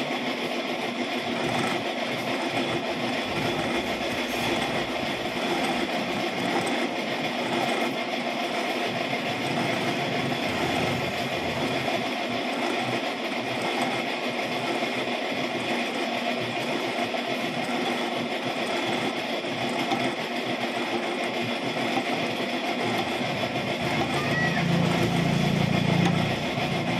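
Metal lathe running steadily, turning a propeller shaft with a welded-on universal-joint yoke clamped in its chuck: an even motor and gear hum. Near the end a deeper hum swells for a couple of seconds.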